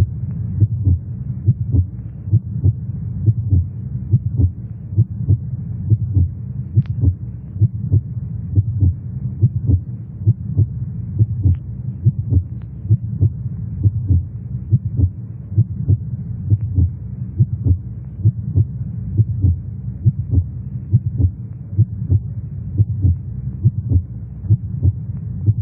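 Heartbeat sound effect: a steady, quick thumping over a low hum.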